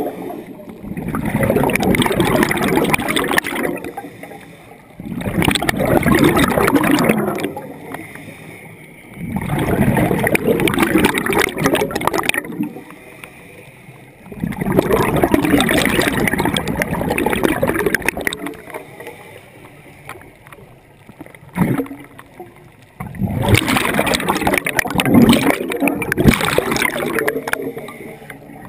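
Scuba diver breathing through a regulator underwater: long bursts of exhaled bubbles gurgling past, about every four to five seconds, with quieter gaps between. A single sharp click sounds in a longer lull about two-thirds of the way through.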